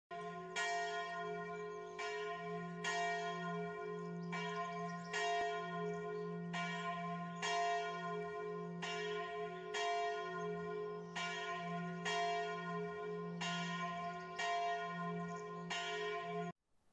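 Church bell ringing with steady, evenly spaced strokes about every three-quarters of a second, each stroke ringing on into the next; it cuts off suddenly near the end.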